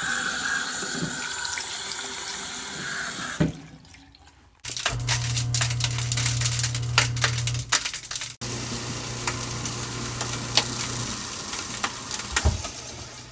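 Water running from a tap into a sink, heard in three short stretches with breaks between them. In the later stretches a steady low hum runs under the water.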